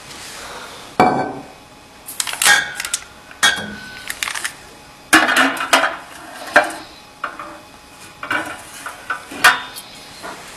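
Glass wine bottles knocking and clinking against the stainless steel trough of a wine-capsule shrink machine and against each other: a string of sharp, irregular clanks with a short metallic ring.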